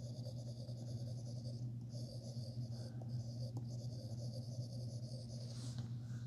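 S Pen scribbling on the Samsung Galaxy Tab S8's screen: a scratchy, paper-like writing sound in quick strokes with brief pauses, stopping shortly before the end. A steady low hum sits underneath.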